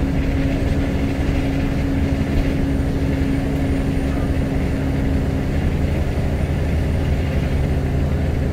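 Scania L94UB Wright Solar single-deck bus under way, heard from inside the saloon: a steady low rumble and hum from the engine and drivetrain. A higher engine tone drops away about five and a half seconds in.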